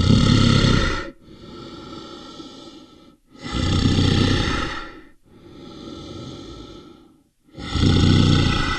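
A large animal breathing heavily in a slow rhythm. Each cycle is a loud, rough breath of about a second, then a quieter breath of about two seconds, repeating about every four seconds.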